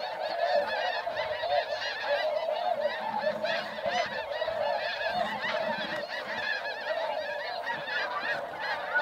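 A large flock of snow geese calling overhead: a dense, unbroken din of many short, high-pitched calls overlapping.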